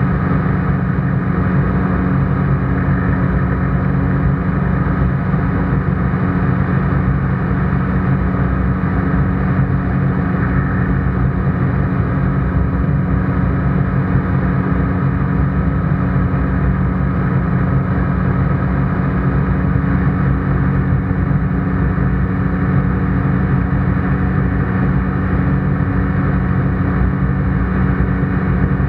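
ICP Bingo ultralight's engine and propeller droning steadily in cruise flight, heard from inside the cockpit. The pitch and level hold even throughout.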